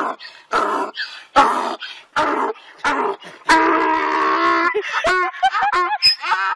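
An animal calling in a series of short pitched cries, with one longer held call about halfway through and then a quick run of rising-and-falling yelps.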